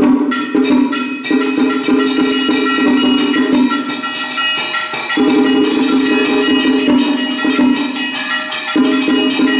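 Cao Đài ceremonial music: a sustained melody over bells and percussion, which drops out briefly about halfway through and again near the end.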